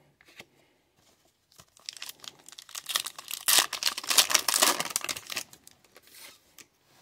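A trading card pack's plastic wrapper being torn open by hand: a crackling, crinkling rip that builds from about a second and a half in and is loudest around four to five seconds, then a brief rustle near the end.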